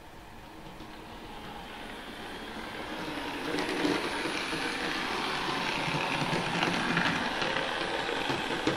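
Trix H0 model railcar of DB class 724 (Indusi test car) running along the track at speed step 80, with its digital sound not yet switched on: motor, gearing and wheels on the rails give a fine rattling run that grows louder as it approaches, then holds steady. It runs without the knocking of a suspected wheel flat spot.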